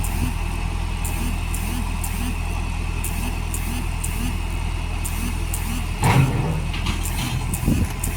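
Heavy diesel engine running steadily, with a faint sound repeating about twice a second. About six seconds in comes a sudden louder burst of noise, followed by a few shorter knocks near the end.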